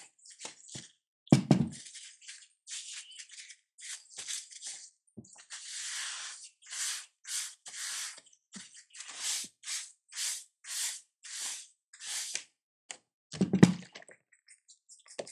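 Paper napkin rubbing over a painted cast-metal rivet press in quick back-and-forth strokes, about two a second, as it is wiped clean. A heavy thunk about a second in and another near the end as the metal press body is moved and set down on the table.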